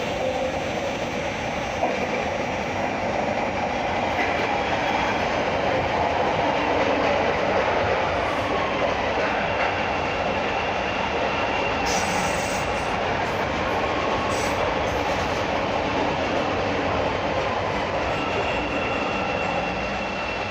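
CTA "L" rapid-transit train running on the rails: a steady rumble of wheels on track that swells about a third of the way in and then eases, with a faint high wheel squeal in the second half.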